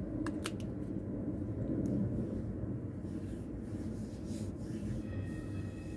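Hands rubbing and kneading oiled skin of the belly in a self-massage: a soft, steady rubbing.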